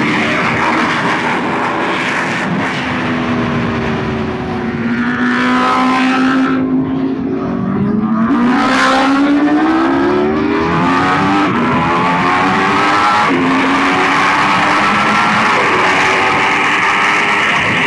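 Aprilia RSV4 1100 Factory's V4 engine pulling at freeway speed, with wind rushing past. The revs climb and drop sharply about eight seconds in and again a few seconds later, as the bike accelerates and shifts up, then hold steady.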